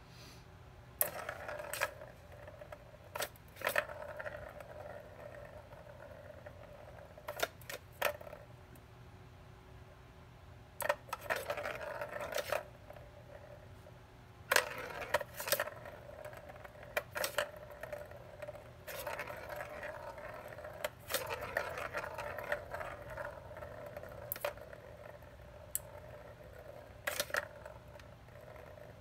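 Plastic balls rattling and rolling around the circular tracks of a three-tier plastic cat toy as a kitten bats at them: several spells of rolling rattle, each a second or more long, with sharp clicks of ball on plastic in between.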